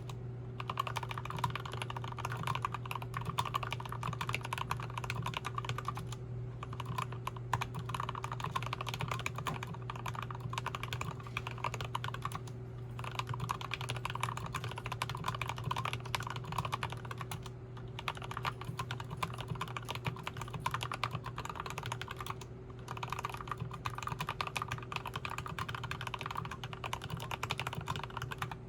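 Continuous fast typing on a custom 60% mechanical keyboard with Krytox 205g0-lubed Turquoise Tealios linear switches, broken by short pauses about every five seconds.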